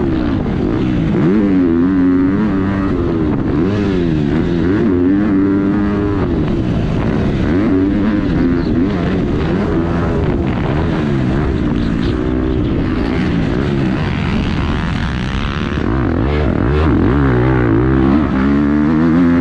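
Motocross bike engine heard from onboard, revving hard and dropping off over and over as the rider accelerates, shifts and rolls off over the jumps.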